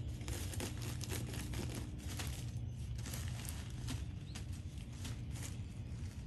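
A basenji puppy digging with its paws in loose pine needles on top of plastic-wrapped pine straw bales: quick, irregular scratching and rustling of needles with crinkling plastic, over a steady low hum.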